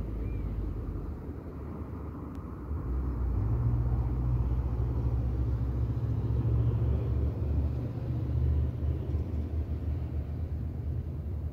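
A low, unsteady rumble that grows louder about three seconds in, with one faint click.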